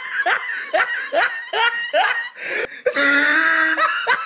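A person laughing hard in short repeated bursts, about three a second, drawing out into a longer held laugh near the end.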